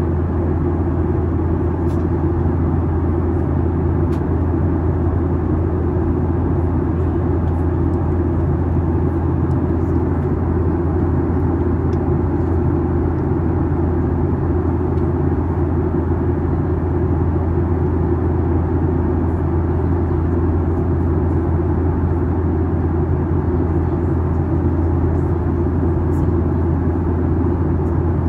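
Steady, unchanging drone of a Boeing 737 MAX 8's engines and airflow heard inside the passenger cabin, heaviest in the deep low end.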